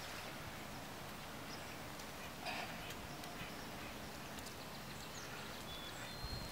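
Faint handling noise from a hunter strapping a deer onto a wheeled game cart: soft rustling with a few light clicks and a brief scuff about two and a half seconds in, over a steady background hiss.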